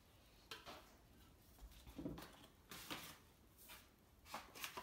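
A few faint, short knocks and rustles: the metal mixing bowl of a Thermomix food processor being handled and set aside, and a bag of flour being picked up.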